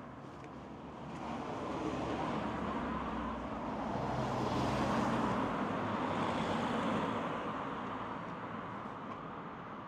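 A road vehicle passing by: its noise swells to a peak about halfway through, then fades away.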